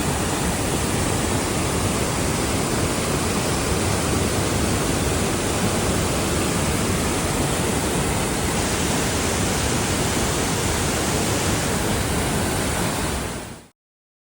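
Adams Falls, a waterfall running high after days of rain, rushing in a loud, steady roar of falling water. It fades out quickly near the end.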